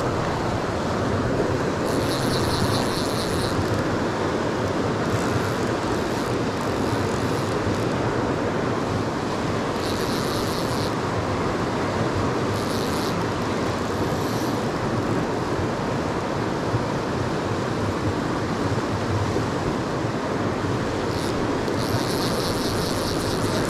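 Steady rush of a fast, shallow river running over rocks. Four times, short bursts of a fly reel's rapid clicking as line is reeled in or pulled out, the last near the end.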